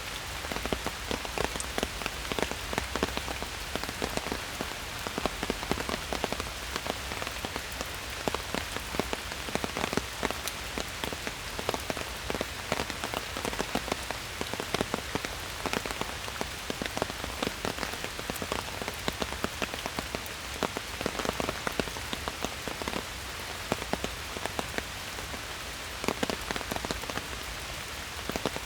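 Steady rain falling in a forest, a constant hiss with many close, distinct drops pattering on leaves and surfaces.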